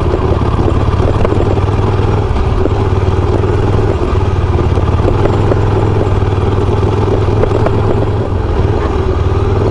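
Ducati motorcycle engine running at a steady low speed as the bike rolls along a gravel track, with light clatter from the ride.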